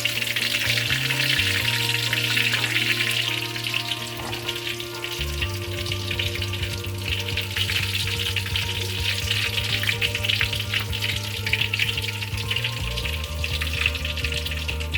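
Chicken pieces deep-frying in hot oil in a kadai: a dense, steady sizzle with many small crackling pops.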